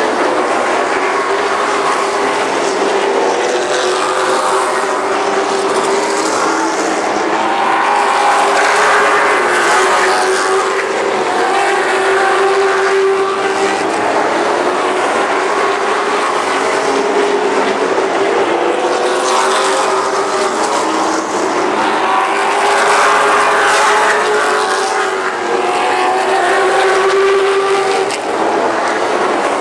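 A pack of late model stock cars racing around a short paved oval, their engines running loud and hard with the pitch swelling and falling as they go through the turns.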